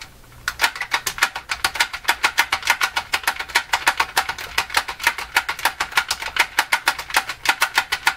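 Push-button switches on a Fisher System 8700 amplifier clicking rapidly, about seven clicks a second, as they are worked over and over to spread isopropyl alcohol cleaner through their dirty contacts.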